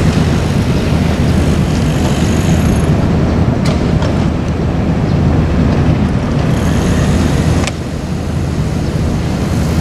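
Hydraulic excavator's diesel engine running steadily with a low drone. A few short sharp knocks come through it, two a little past three and a half seconds in and one near eight seconds.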